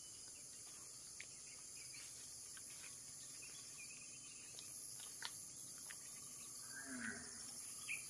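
Steady high-pitched chorus of insects, like crickets, with a few faint footsteps on dry grass.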